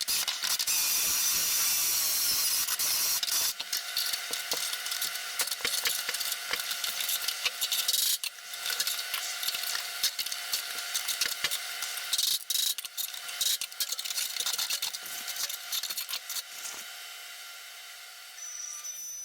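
A small power tool working on sheet metal: a steady whine under hissing and crackling, which eases off near the end.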